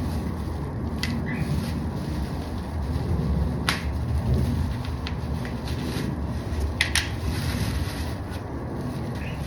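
Wind buffeting the microphone in a steady low rumble. Over it come a few sharp clicks and rustles as the boxed saddlebag guards and their padding are handled, the loudest about four seconds in and a close pair about seven seconds in.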